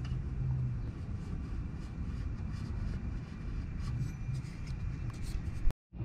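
Steady low background rumble, with faint light scratching and clicking as the compressor is handled and its mounting position marked.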